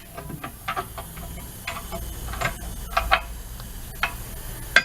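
Irregular metallic clicks and clinks, about a dozen sharp strikes with a brief ring, from hand tools working on a steel wheel and its run-flat insert.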